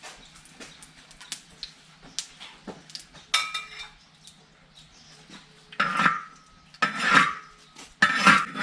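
A metal utensil scraping and clanking against a cooking pot, with small knocks at first and three louder scrapes in the second half, each ringing briefly.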